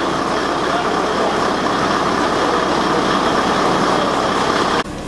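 Ex-JNR KiHa 20-series diesel railcar KiHa 205 standing with its DMH17-family diesel engine running, a loud steady hum. It cuts off abruptly near the end.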